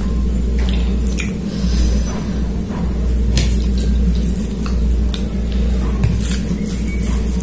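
Wet squishing and small clicks of fingers mixing rice and chicken curry on a plate, with mouth chewing sounds, over a steady low hum.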